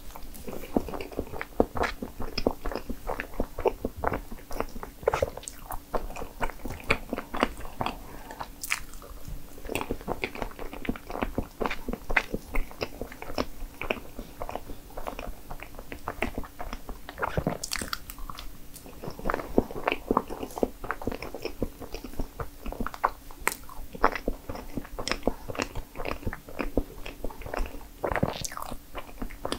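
Close-miked eating of strawberry crepe cake: soft chewing and wet mouth clicks, continuing irregularly, with a few sharper clicks.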